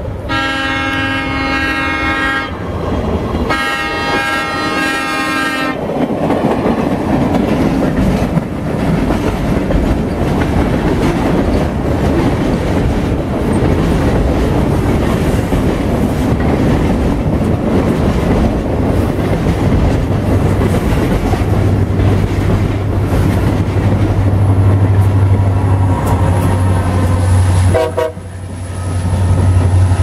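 Freight train horn blowing two blasts of about two seconds each, a chord of several notes. Then steady wheel-on-rail noise as freight cars roll past, joined in the second half by the low drone of a diesel locomotive's engine.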